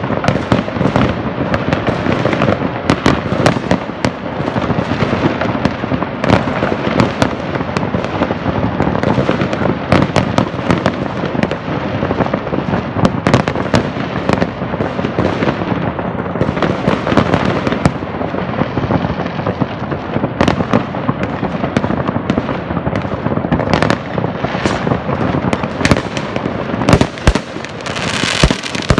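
Many fireworks going off all over a town at once: a dense, unbroken din of overlapping bangs, booms and crackles with no pause, and a louder spell of crackling near the end.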